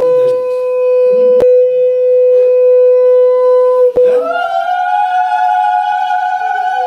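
Conch shell (shankha) blown in long steady notes: one held note, then about four seconds in a higher note that rises slightly and holds. A sharp click is heard about a second and a half in.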